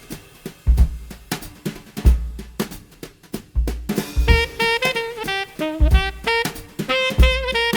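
Music: a drum-kit beat of kick and snare hits, joined about four seconds in by a melody.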